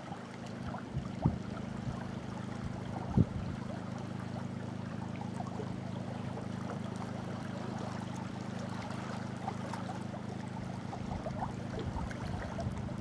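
Lake water lapping and trickling around a rock, over a steady low hum. Two sharp knocks stand out, about one and three seconds in.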